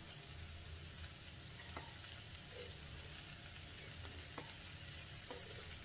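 Chopped vegetables sizzling steadily in a hot pan after frying, with a few faint taps scattered through.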